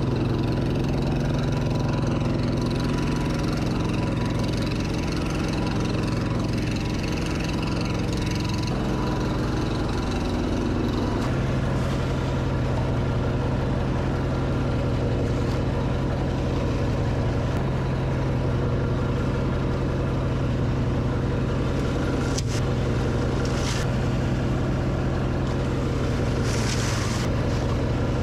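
Organic waste shredder's motor running steadily with a low hum, its pitch shifting slightly a few times. A few short crackles near the end as dry leaves are handled.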